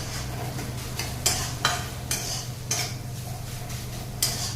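Spatula stirring and scraping crumbled paneer around a hot kadai, with a light sizzle of frying; several sharp, irregular scrapes.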